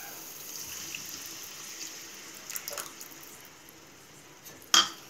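Tamarind water being poured into a pan of thick masala paste: a steady splashing pour, with a sharp knock near the end.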